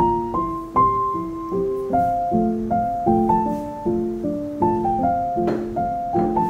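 Solo piano music: a gentle melody of single notes and chords, struck a few times a second and each left to fade.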